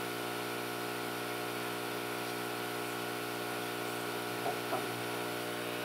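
Hot air rework station's blower running steadily, a constant hum with an even hiss of air, as it heats the touch glass to soften its adhesive.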